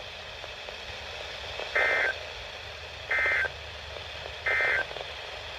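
Three short bursts of NOAA Weather Radio SAME digital data tones, each about a third of a second long and about 1.3 s apart, over a steady low hiss. Short triple bursts like these are the Emergency Alert System end-of-message signal that closes a warning.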